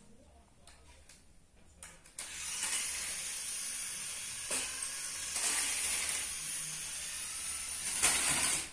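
Toy RC off-road car's small electric motor and gears whirring as it drives, starting about two seconds in and running steadily, loudest near the end.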